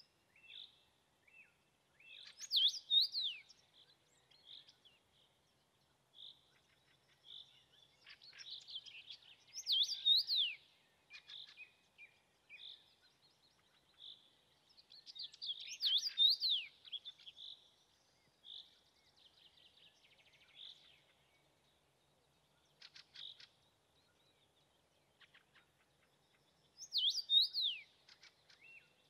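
Male common rosefinch singing: four loud whistled phrases of slurred notes that rise and fall, spaced several seconds apart, with softer short chirping notes between them.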